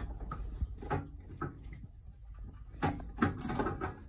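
Scattered clicks and knocks of a vehicle jack being wound down by its handle and lifted out of a steel seat-mount box, with a few louder knocks about three seconds in.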